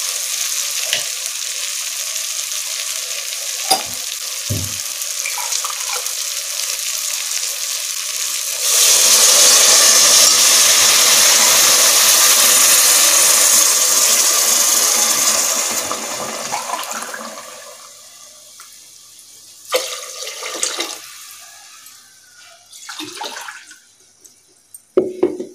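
Brinjal and spices frying in oil in a pressure cooker pan, a steady sizzle with a few knocks of a steel ladle. About nine seconds in, water is poured into the hot pan and a much louder rushing hiss runs for several seconds, then dies away. Near the end the ladle knocks and scrapes in the now watery pan.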